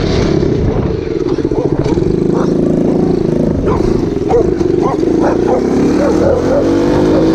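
Small quad (ATV) engine running under way, its note dipping and rising with the throttle.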